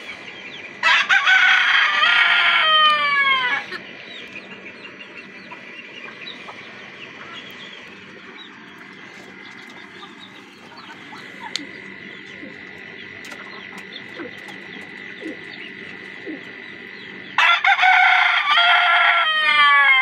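Desi rooster crowing twice, about a second in and again near the end; each crow is loud, and its last note falls in pitch. Softer clucking from the hens fills the time between.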